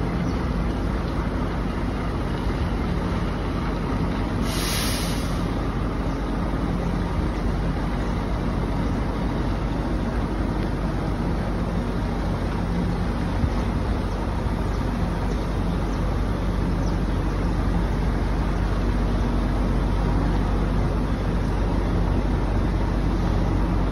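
Volvo FH truck's diesel engine running low and steady while it slowly reverses a double tipper-trailer rig, a little louder in the last few seconds. A short hiss of air about four and a half seconds in.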